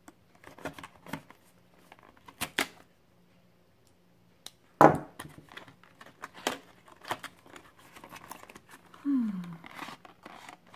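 Cardboard product box and its packaging being worked open by hand: scattered clicks, scraping and tearing, with one sharp snap about five seconds in.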